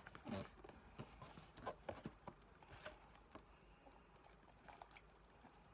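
Faint handling noise: scattered light taps and rustles, mostly in the first three seconds, as a canvas sneaker and its cardboard shoebox are handled.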